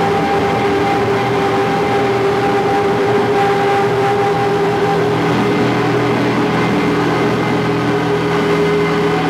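Amplified electric guitars holding a loud, sustained drone of several steady tones, with no drum beats.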